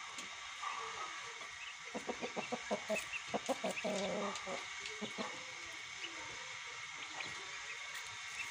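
Rooster clucking: a quick run of short clucks about two seconds in, running into a few longer, wavering low calls, then quiet.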